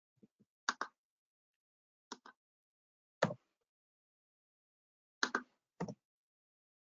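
A handful of short clicks and taps, most of them in quick pairs, with dead silence between them; the loudest is a single fuller knock about three seconds in.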